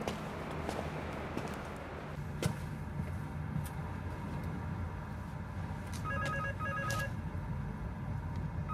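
Electronic ringing tone sounding in short double bursts, starting about six seconds in, over a low hum with a few faint clicks before it.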